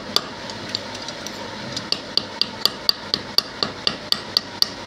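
Small hammer tapping a freshly cast silver button held in tongs against a stone slab, knocking off the slag crust. The light, ringing metallic taps come a few at a time at first, then settle into a steady run of about four a second from about two seconds in.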